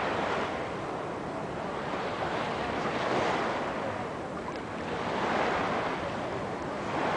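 Small sea waves washing and lapping close by, the sound swelling and fading every two to three seconds.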